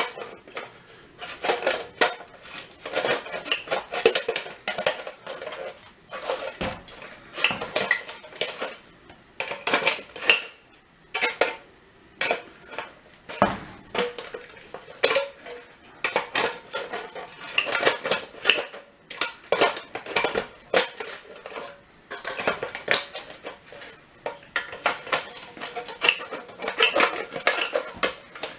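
Tin snips cutting down the thin sheet-metal housing of a recessed light can: irregular sharp metallic snips and clanks, the can rattling and ringing as the cut metal is bent and torn away.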